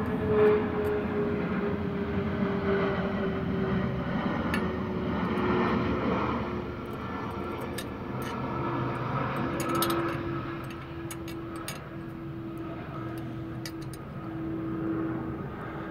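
Drone of a propeller airplane passing overhead, its pitch slowly falling, with a few faint clicks.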